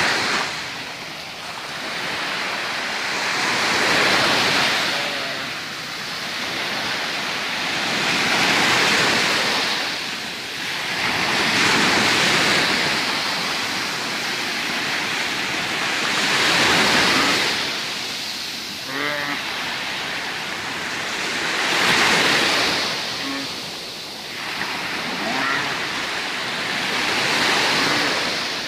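Sea waves breaking on the shore in slow swells every four to five seconds. A goat bleats a few times in the second half, short wavering calls over the surf.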